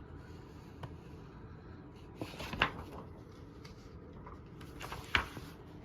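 Paper instruction booklet being handled and its pages turned, with a few short crackles of paper: a cluster about two and a half seconds in and a sharper one near the end.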